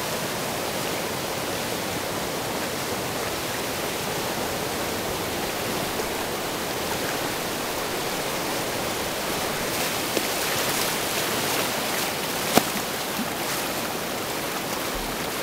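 Whitewater rapid rushing steadily, with a few brief splashes about ten seconds in and a single sharp click a little later.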